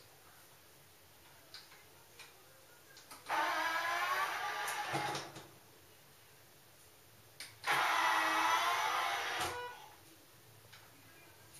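Electric toilet lid and seat motors: a geared motor whines for about two seconds as the lid lifts, then whines again for about two seconds a few seconds later as the seat rises. A few faint clicks fall between the two.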